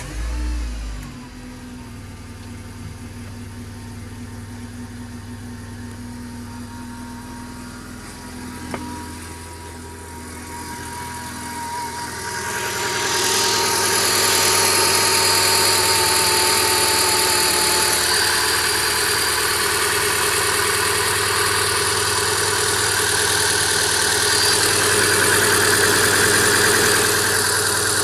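Renault Clio 197's 2.0-litre four-cylinder petrol engine just started, with a brief low surge as it catches, then idling steadily. About twelve seconds in, a louder rushing noise builds and holds. The owner complains of a strange noise from the engine bay and a hesitant exhaust.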